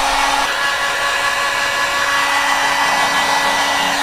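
Heat gun blowing steadily, a constant rush of hot air with a faint motor whine. It is heating the sealant along a headlight's lens seam to soften it so the lens can be pried off.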